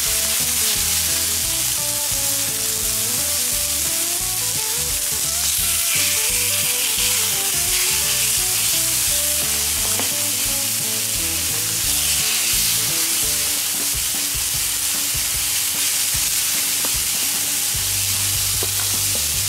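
Marinated lamb fillets sizzling steadily on a hot fire-plate griddle as more meat and the onion-garlic-olive-oil marinade are laid on.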